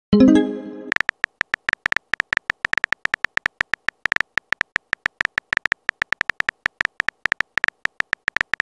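Texting-app sound effects: a short pitched message-sent tone that dies away, then a long run of rapid keyboard-tap clicks, several a second, as a message is typed.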